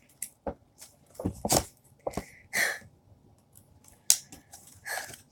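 Toy box packaging being handled and pulled open by hand: a string of irregular clicks, taps and short rustles.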